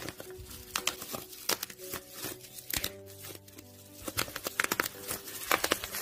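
Bubble wrap popped between fingers: sharp, irregular pops that come thick and fast in the last two seconds.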